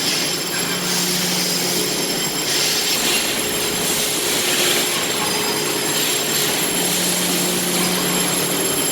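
ICE RS32 ride-on floor scrubber running: a steady whir and hiss from its motors, with a low hum that fades out for a while and comes back near the end.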